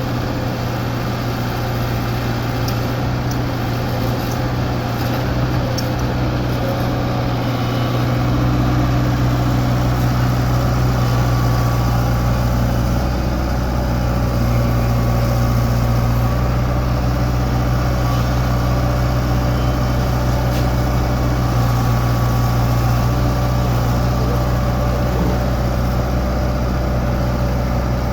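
Hydraulic excavator's diesel engine running steadily, growing a little louder and deeper from about eight seconds in.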